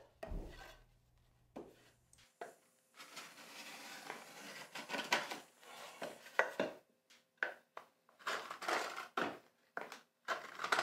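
A wooden marking gauge's pin scratching along the edges of a board in a run of short strokes, scribing the depth line for a resaw cut. There are a few light knocks from the board being handled.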